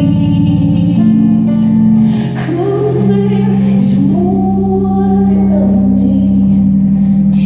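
Live concert music picked up on a phone in the audience: long, steady keyboard chords held under a woman's singing voice that rises and falls over them.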